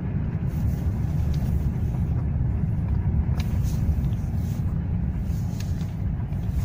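Cabin noise of a Toyota Mark II (X100) automatic driving slowly in Drive: a steady low rumble of engine and road at around 1,500 rpm.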